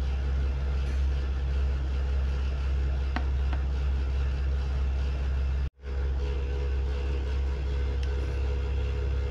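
A steady low-pitched hum that drops out abruptly for an instant a little over halfway through, then carries on unchanged.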